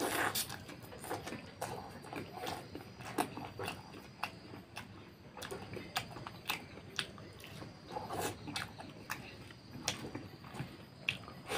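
Close-up mouth sounds of a man eating fatty pork curry and rice by hand: chewing and biting with many short, sharp mouth clicks and smacks at irregular intervals.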